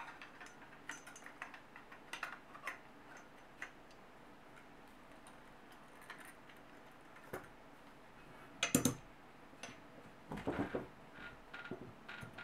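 Light clicks and taps of metal parts being handled as a bullpup mechanism is fitted onto an Air Arms S410 air rifle, with a louder clatter of knocks a little past the middle and a few more shortly after.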